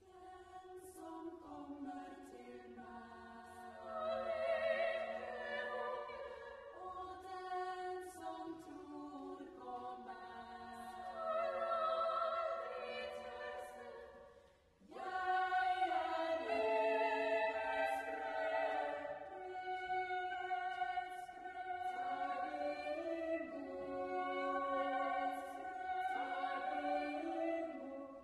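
Women's choir singing unaccompanied, holding long notes in close harmony. There is a short break about halfway through before the next phrase comes in.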